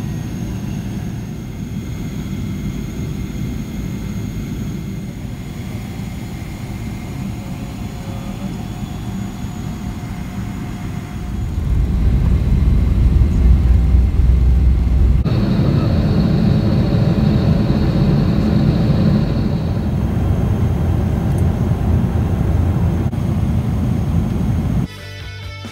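Jet airliner cabin noise: a steady low engine and air rumble heard from inside the passenger cabin. About a dozen seconds in it becomes louder and deeper, in flight, with a thin high whine over it for a few seconds; the rumble gives way just before the end.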